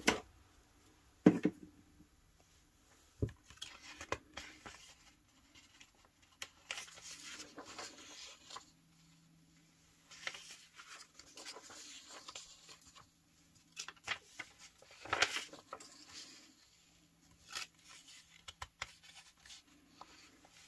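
Sheets of printed paper rustling and sliding as they are handled and laid down on a stack, in short scattered swishes, with a sharp tap about a second in.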